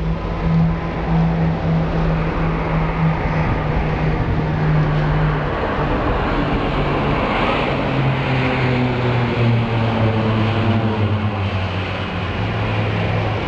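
Drone of a formation of Esquadrilha da Fumaça turboprop aircraft flying overhead. It holds a steady pitch, then drops lower about halfway through as the planes pass, with a rush of noise at the same moment.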